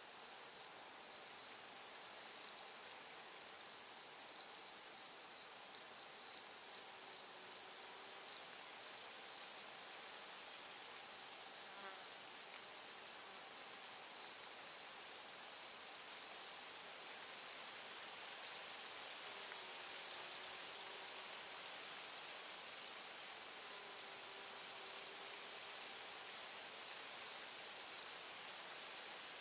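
A dense, steady chorus of crickets: a continuous high-pitched shrilling at two pitches, with no break.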